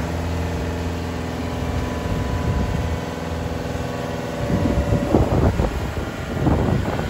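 2004 Bitelli BB632 wheeled asphalt paver's diesel engine running steadily as the machine drives slowly. About four and a half seconds in, the steady engine note fades under an uneven, gusty rumble.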